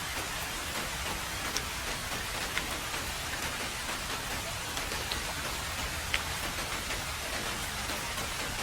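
Heavy rain falling on a road: a steady, dense hiss with a few sharper single drop hits standing out now and then.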